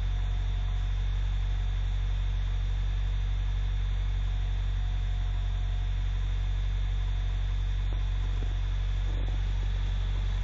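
Engine idling steadily after a hard cold start in sub-zero weather, a low, even hum that does not change.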